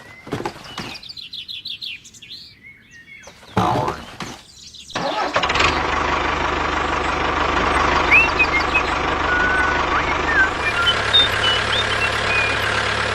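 Cartoon sound effects: a few short clicks and squeaks, then a vehicle engine starts about five seconds in and runs steadily, with birds chirping over it.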